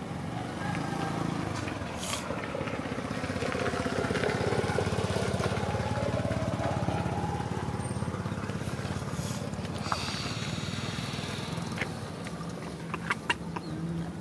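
A small engine running steadily in the background, getting louder through the middle and easing off again, with a few sharp clicks near the end.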